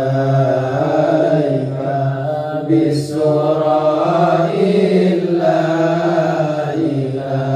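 Men chanting serakalan, Arabic sholawat verses in praise of the Prophet, in long held notes that waver slowly in pitch, the lead voice sung into a microphone.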